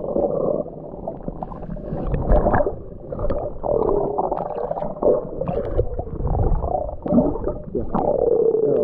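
Muffled underwater sound picked up by a GoPro camera held beneath the water surface: water sloshing and gurgling against the housing, with low rumbling, wavering muffled tones and scattered soft knocks.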